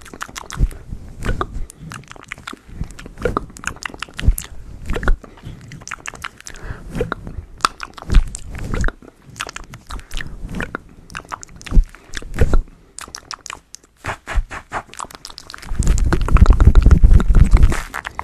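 Close-miked ASMR sounds of hands working right at a microphone with a furry windscreen: irregular crisp clicks and crackles, then near the end a louder, low rumbling rub for a couple of seconds.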